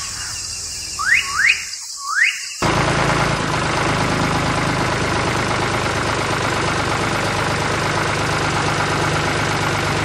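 A few quick rising whistle chirps in the first two seconds. Then, about two and a half seconds in, a steady motor hum starts suddenly as the miniature model tractor with its trolley drives along.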